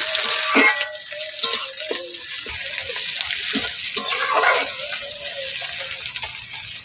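Chopped onions sizzling in hot mustard oil in an aluminium karai, with a spatula scraping and knocking against the pan as they are stirred. The sizzle is loudest in the first second and swells again about four seconds in.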